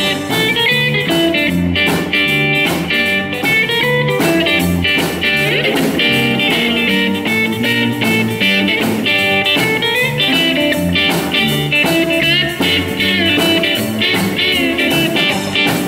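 Live rockabilly trio playing an instrumental passage: hollow-body electric guitar over upright double bass and drums, with a steady beat.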